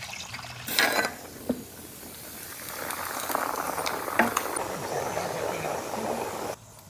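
A whole masala-coated chicken deep-frying in a pan of hot gingelly (sesame) oil: a clatter about a second in, then a sizzle and bubble that builds up and holds before cutting off suddenly near the end.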